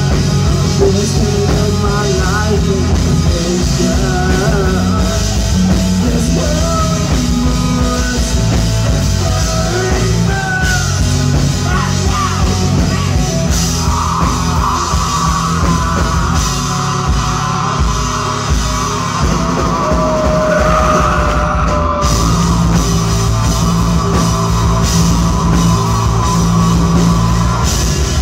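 Live rock band playing: electric guitar, bass and drum kit, with singing in the first part and a long held high note from about halfway.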